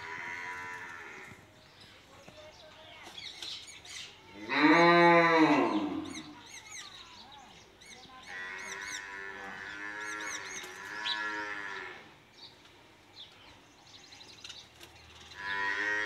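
Cattle mooing: several drawn-out moos, the loudest about four and a half seconds in, rising and then falling in pitch. Faint high chirps of house sparrows come between the moos.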